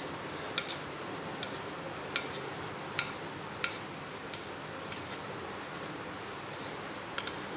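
Kitchen knife clicking against a ceramic plate as it slices a rolled omelette into strips: about eight sharp, short clicks at uneven intervals.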